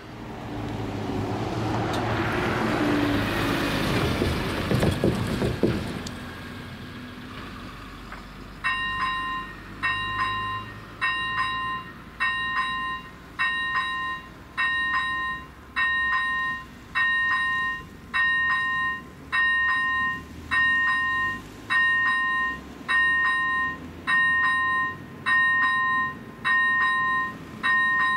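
A passing train's noise swells over the first few seconds and fades away by about six seconds in. From about eight seconds in, the crossing's AŽD 97 electronic warning bell rings steadily about once a second, warning of an approaching train.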